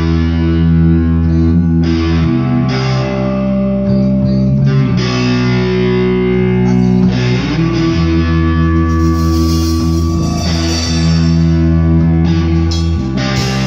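Guitar-led band music being played: held chords over a strong bass, the chord changing every two to three seconds.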